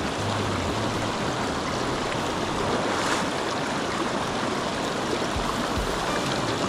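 Shallow rocky stream running over and between stones: a steady rush and ripple of water.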